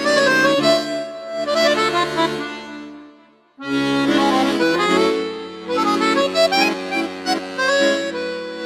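Instrumental background music: a melody over held chords, which breaks off briefly about three seconds in and then starts again.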